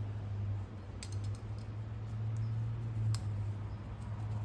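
Small scattered clicks and taps of a piston wrist-pin circlip being worked into its groove by hand, the sharpest about three seconds in, over a steady low hum.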